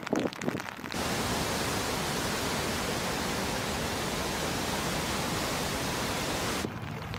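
Swollen floodwater torrent pouring past a bridge: a steady rush of water that starts suddenly about a second in and stops suddenly near the end. Before it come scattered drips of rain.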